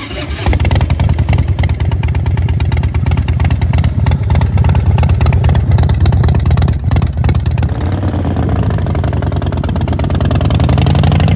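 Harley-Davidson Twin Cam 88 V-twin with S&S 585 cams running loud through Vance & Hines Short Shots exhaust. The engine speed shifts up and down in the last few seconds.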